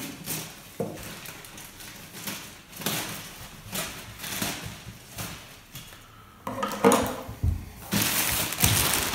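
Scissors clicking and snipping through a black plastic mailing bag, with scattered small rustles. Near the end the plastic crinkles more loudly as it is pulled open.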